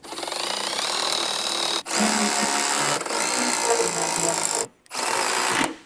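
Milwaukee M18 cordless driver with a socket running bolts down to snug the fender and hood-hinge bolts. The motor runs three times: about two seconds, then about three, then a short burst, with brief stops between.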